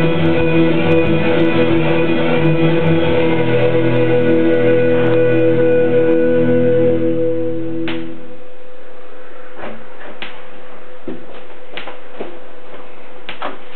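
Karaoke backing track ending on a long held chord with guitar, which cuts off about eight seconds in. A few light clicks follow.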